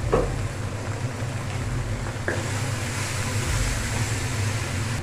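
Onion, garlic and shrimp paste sizzling in hot oil in an aluminium wok, as it is sautéed and stirred with a wooden spatula. The sizzle fills out from about two seconds in, with a light knock of the spatula at the start and another about two seconds in, over a steady low hum.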